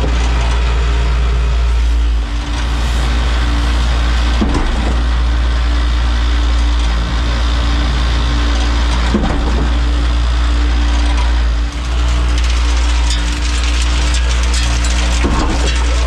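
Concrete pump truck (57-metre Alliance boom pump) running at working speed while being water-primed: a loud, steady diesel-and-hydraulic drone, with a brief shift in the sound about every few seconds as the pump cycles.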